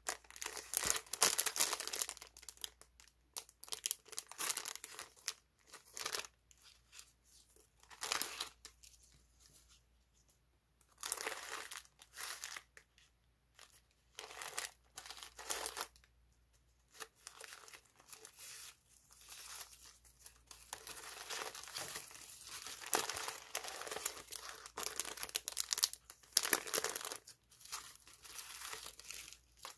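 Hands crinkling cellophane-wrapped sticker sheets, then rustling and unfolding honeycomb kraft packing paper, in irregular bursts with short pauses.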